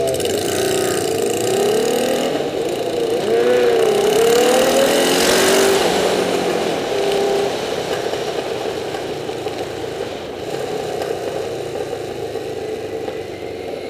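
Motorcycle engine accelerating through the gears, its pitch rising and dropping at each change over the first half, then running steadily under heavy wind and road noise.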